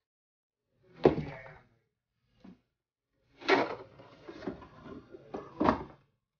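Handling noises of a boxed item on a table: four knocks, the first and last two loudest, with rubbing and scraping between them.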